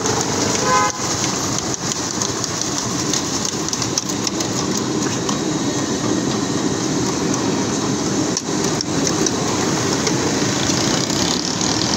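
Potato fries deep-frying in hot oil in a large street-stall fryer: a steady sizzle with crackling ticks, and a few light knocks as the wire fry basket is shaken.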